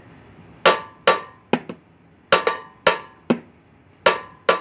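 A spoon striking kitchenware in a repeating loud, loud, soft rhythm: sharp hits with a short ringing tail, two strong strikes followed by a softer one, heard about two and a half times over.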